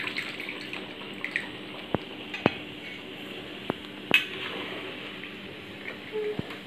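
Spatula clinking and scraping against a wok while coconut milk is poured into chicken curry and stirred in, with a handful of sharp clicks over a soft liquid stirring sound.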